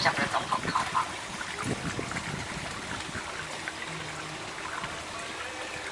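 Water washing and trickling steadily along the hull of a slow-moving canal tour boat.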